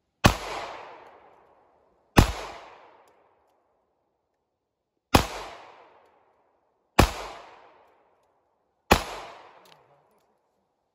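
Semi-automatic pistol fired five times in slow, deliberate single shots two to three seconds apart, each shot trailing off in a short echo through the trees.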